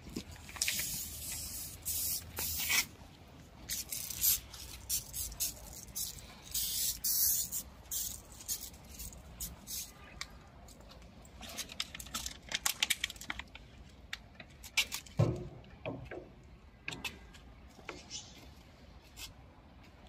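Homemade degreasing solution sprayed from a handheld sprayer onto the plastic casing of an air conditioner indoor unit: repeated hissing bursts of spray, some lasting a second or two, others short and quick in clusters. A dull thump about fifteen seconds in.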